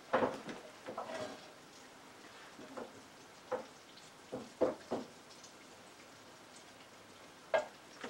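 Hot vegetable oil sizzling faintly in the frying pan, with a run of irregular sharp clinks and knocks from kitchen utensils and the pan, about eight in all.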